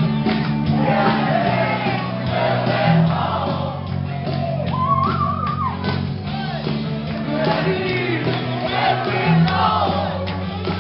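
Live rock band playing loud through a PA, with singing and voices shouting along over steady bass and guitar.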